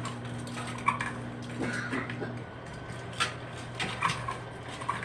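Kitchenware being handled: several separate light clinks and knocks of dishes and utensils, over a steady low hum.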